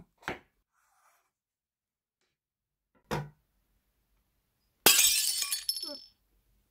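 Two short soft knocks, then about five seconds in a loud glass-shattering sound effect that crashes suddenly and rings out for about a second.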